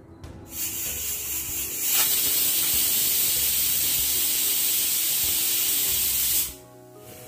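Stovetop aluminium pressure cooker whistling: a loud steam hiss from the weight valve that builds over the first two seconds, holds steady, then cuts off suddenly near the end. It is one of the whistles that mark the cooker reaching pressure on high flame.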